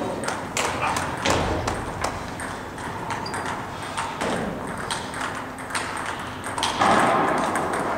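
Table tennis balls clicking off paddles and tables at irregular intervals, echoing in a large gym hall, from games in play at neighbouring tables. A louder, fuller sound of about a second comes near the end.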